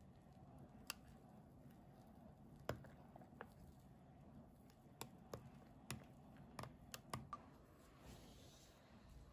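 Metal spoon clinking lightly against a glass while stirring whipped dalgona coffee foam into milk, about nine separate clicks at uneven intervals, over near silence.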